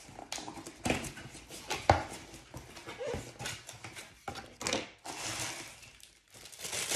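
A boxed wax warmer and its packaging being handled and unpacked: a run of knocks and clicks with rustling, and a brief squeak about three seconds in.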